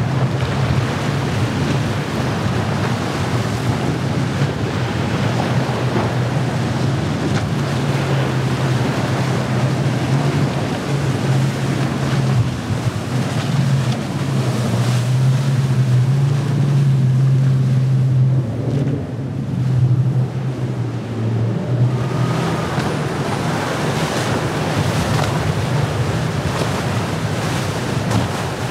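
Motorboat engines running with a steady low drone under the wash of breaking waves and surf, with wind buffeting the microphone.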